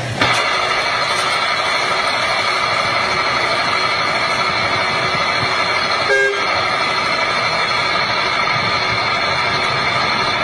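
Small horizontal drill rig running, its drill rod turning into rock: a steady mechanical whine with several held tones that cuts in abruptly right at the start, with a brief break about six seconds in.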